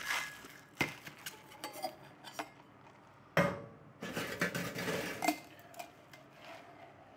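Stainless-steel cocktail shaker tins and bar tools clinking and knocking. The ice rattle of the shake stops right at the start, then come scattered clinks, a sharp knock about three and a half seconds in, and a run of clattering after it as the shaker is opened and readied for straining.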